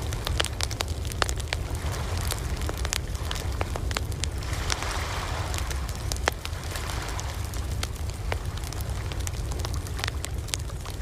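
Campfire crackling, with frequent sharp pops and snaps over a steady low rumble. Around the middle, a wash of surf swells up and fades.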